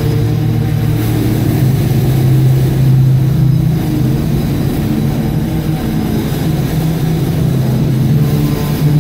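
Double-stack container train rolling steadily past: a continuous rumble of wheels on the rails with a steady low hum.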